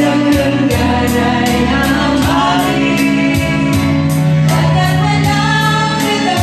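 Women singing into karaoke microphones over a karaoke backing track with a bass line and a steady beat of about two ticks a second.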